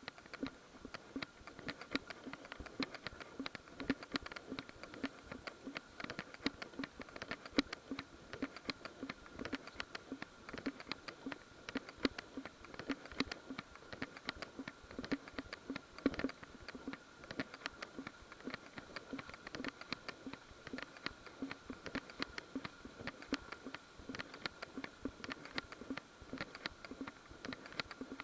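Handling noise from a small action camera jostling as it is carried along a dirt trail: a dense, irregular run of clicks and taps, several a second, over a faint steady high whine.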